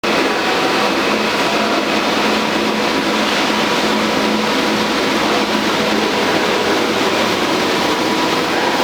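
Paper reel slitting machine running steadily: an even mechanical rush of noise with a faint constant hum, holding at the same level throughout.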